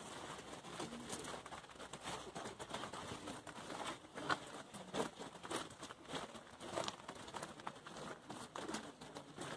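Faint rustling and scuffing with irregular soft clicks, the close handling and clothing noise of someone walking with a handheld camera among a crowd of visitors.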